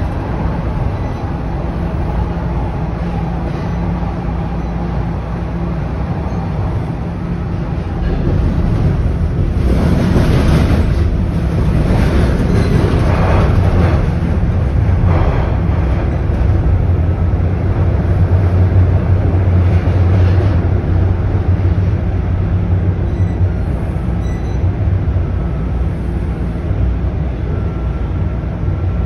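A Toronto Rocket subway train running, heard from inside the car: a steady low rumble of wheels on rail, with a louder rush of noise about ten seconds in and a thin steady tone joining near the end.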